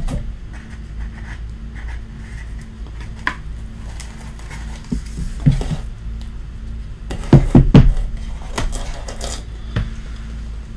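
Hands handling trading cards and rigid plastic card holders: scattered taps and clicks, with a cluster of louder knocks about seven to eight seconds in, over a steady low hum.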